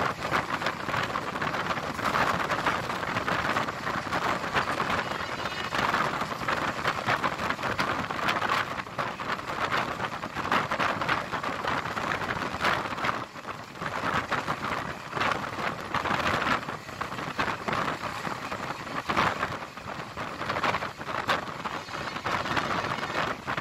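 Passenger train running at speed, heard from a coach window: a steady, dense rushing rattle of wheels on the rails and air past the coach, rising and falling in loudness.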